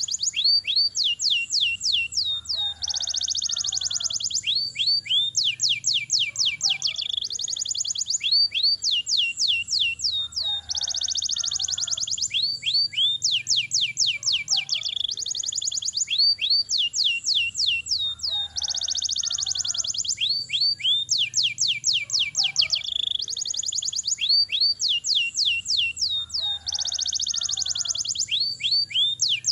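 Domestic canary singing a long rolling song: fast runs of high, falling whistled notes alternating with dense, rapid trills, the same phrases coming round again about every five seconds.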